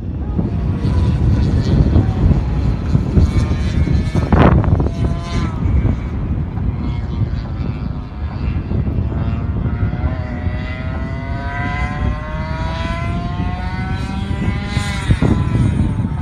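Racing kart engine on the track, its pitch climbing steadily for several seconds as the kart accelerates, then dropping off about fifteen seconds in, over a heavy low rumble.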